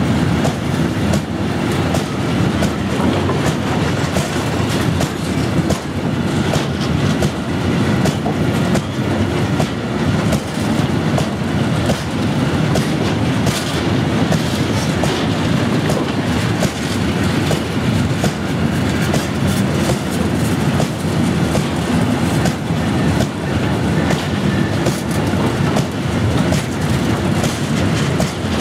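Freight train of self-discharging hopper wagons passing close at speed: a loud, steady rumble of steel wheels on the rails with a rapid run of sharp clacks as the bogies cross the rail joints.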